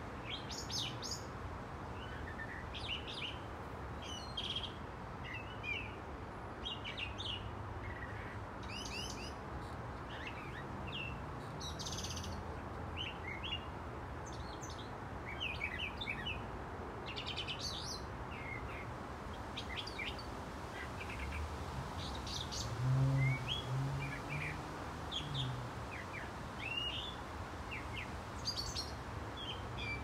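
A songbird, taken by the uploader for a mockingbird, sings a steady run of short, varied chirping phrases, one or two a second, a song the uploader hears as an imitation of a car alarm. A brief low hum rises under it about two-thirds of the way through.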